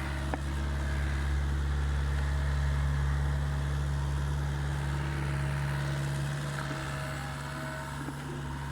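Mini excavator's diesel engine running steadily, a little louder around the middle, with one short click near the start.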